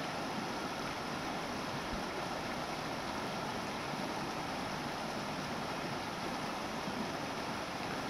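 Shallow creek water running over rocks, a steady rushing noise.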